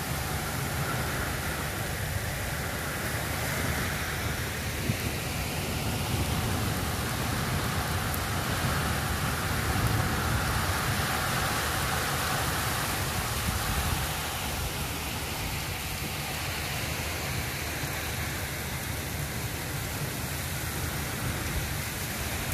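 Heavy rain pouring down in strong, gusting wind: a steady hiss of rain with a low rumble of wind, swelling louder for several seconds in the middle.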